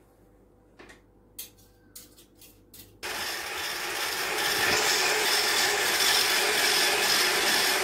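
A few light clicks and taps of utensils against a bowl. About three seconds in, an electric hand mixer starts and runs steadily, its beaters working a thick peanut butter cookie mixture.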